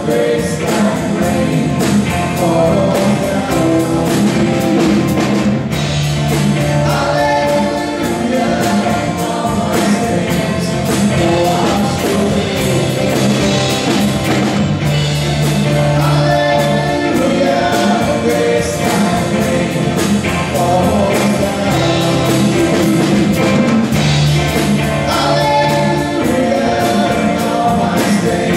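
Live worship band playing a song with singing: acoustic guitar, keyboard and drums under the singers' voices.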